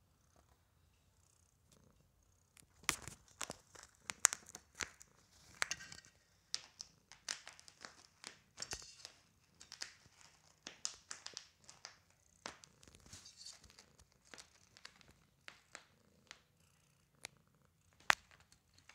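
Domestic cat purring close to the microphone. From about three seconds in, it is overlaid by irregular crackles and rubbing noises as the cat's fur brushes against the camera.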